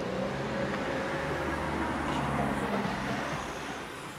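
Electric suburban passenger train running past: a steady rumble and hum with a faint rising whine in the first second, easing off slightly near the end.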